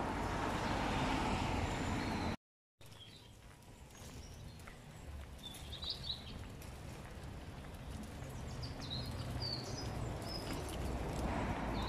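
Birds chirping: short high calls scattered over a low background rumble. A steady rushing noise cuts off abruptly about two seconds in and comes back near the end.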